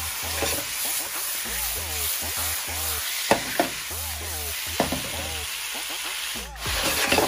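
Marinated chicken pieces frying with onion and garlic in a nonstick pan, sizzling steadily, while a wooden spatula stirs and turns them, knocking against the pan a few times.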